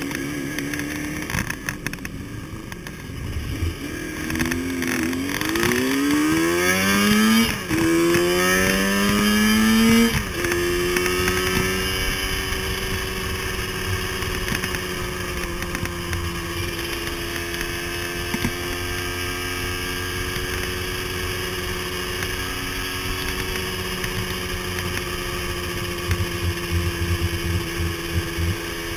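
Motorcycle engine heard from the rider's seat: idling, then pulling away with its pitch rising, dropping at a gear change about seven and a half seconds in, rising again and dropping at another shift about ten seconds in. It then runs at a steady cruising speed with a steady rush of wind noise.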